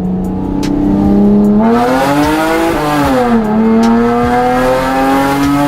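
Mitsubishi Eclipse GT's 3.8-litre V6 accelerating through a custom 3-inch dual exhaust with headers and a glass pack, cats and resonator removed: revs climb, fall at a gear change about three seconds in, then climb again. Loud.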